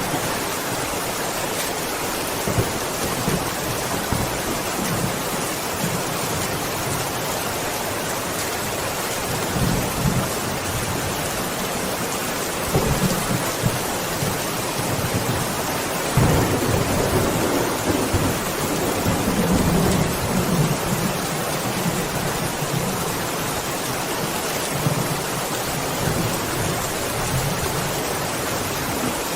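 Steady heavy rain hiss with rolls of thunder rumbling underneath, the longest and loudest from about halfway in, with smaller rumbles before it.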